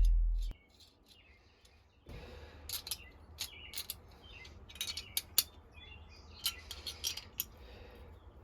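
Light metallic clicks and taps, scattered and irregular, from steel knife blades and small tools being handled on a workbench, over a faint low hum. The tail of music fades out at the very start.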